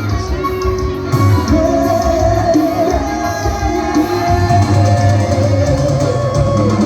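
Live music with a voice singing a wavering melody over a steady bass accompaniment.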